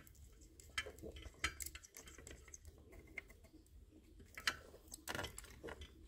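Faint, scattered clicks and taps of tools against a circuit board while a power transistor is being desoldered, a few sharper ones near the end as the part comes loose.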